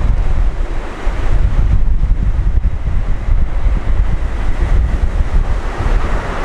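Strong gusty wind buffeting the microphone, a loud, uneven rumble.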